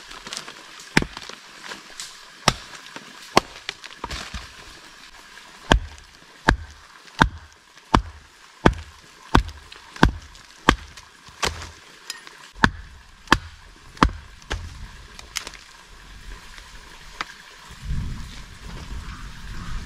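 Steady hand strikes of camp food preparation, sharp and even, about one every three quarters of a second, with two short pauses. Near the end the strikes stop and a low rumbling noise follows.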